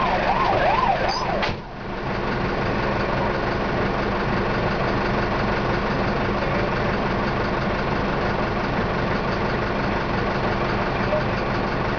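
A siren wailing quickly up and down cuts off about a second and a half in, leaving a fire truck's diesel engine idling steadily, heard from inside the cab.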